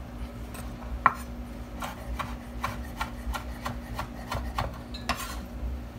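Chef's knife chopping fresh red Thai chilis on a wooden cutting board: a run of quick knife strikes, about four a second, starting about a second in, the first the loudest.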